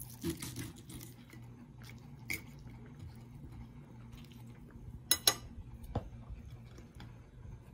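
A steel knife and fork cutting chicken on a ceramic plate: small scrapes and clinks, with two sharp clinks of metal on the plate a little over halfway through, over a low steady hum.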